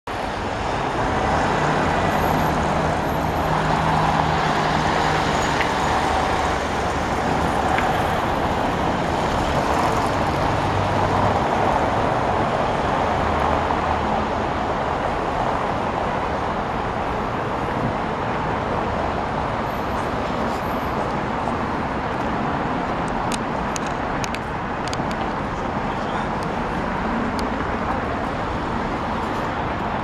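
City road traffic: cars and trucks driving past, a steady rumble of engines and tyres, a little louder in the first half.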